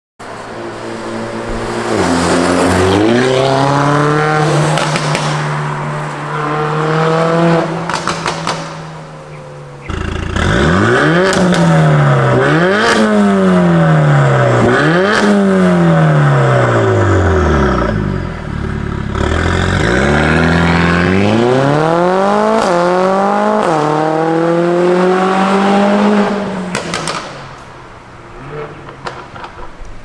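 Mercedes-AMG CLA45 S's turbocharged four-cylinder through a valvetronic exhaust with catless downpipes, revving. The revs climb and hold, then it is blipped in about four quick rises and falls, then a long climb in revs, dropping away near the end with a few sharp pops.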